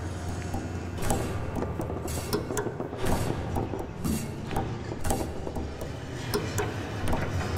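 Small balls bouncing on the strings of a grand piano: an irregular patter of sharp clicks, several a second, over a low steady hum.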